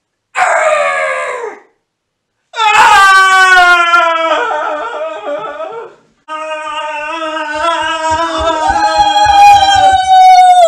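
People screaming in fright: a short falling shriek about half a second in, then two long, held screams, the last one stopping abruptly near the end.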